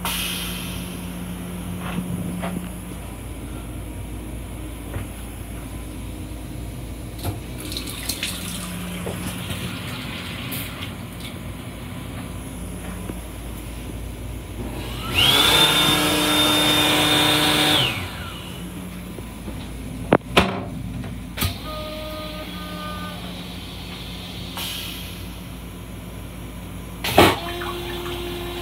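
LIRR M7 railcar toilet flushing: a loud rushing flush of about two and a half seconds with a high whistle through it, followed by a few sharp clunks. A steady low hum of the railcar runs underneath.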